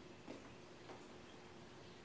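Near silence: room tone with a faint steady hum and two faint clicks, about a third of a second and just under a second in.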